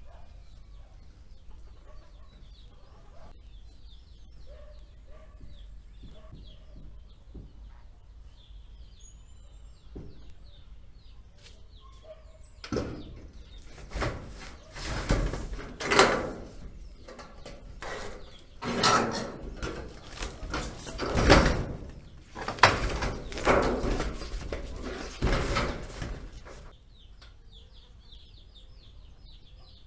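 Corrugated metal roofing sheets being pushed and dragged against one another, a run of loud irregular scraping and clattering that starts about halfway in and stops a few seconds before the end.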